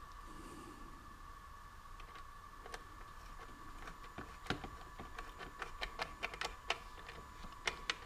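Small clicks and ticks of a hose clamp and hose being worked back into place by hand with a small tool on a generator. The clicks are sparse at first and come in quick runs in the second half, over a faint steady high hum.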